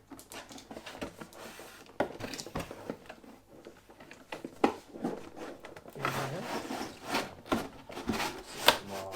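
Items being pulled out of a box by hand: rustling and scraping of packaging with irregular clicks and knocks.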